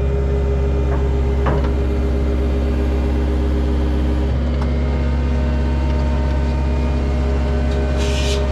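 Vehicle engine running steadily, a low drone with a few faint clicks.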